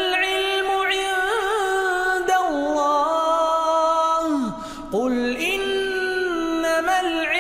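A male reciter chanting Quran recitation (tajwid) in long held notes with ornamented, wavering turns. The phrase ends on a falling note a little past halfway, with a short breath before the next phrase begins.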